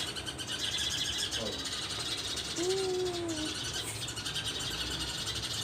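Sparrows chirping in a fast, continuous high chatter, with a short low cooing call about two and a half seconds in.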